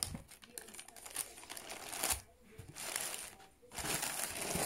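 Tissue paper crinkling and rustling in a cardboard shoebox as a shoe is lifted out, in several irregular rustles with small clicks, the longest near the end.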